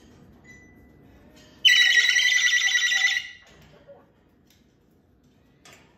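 Moluccan cockatoo giving one loud, buzzy call about two seconds in, lasting about a second and a half, with a faint thin tone at the same pitch leading into it.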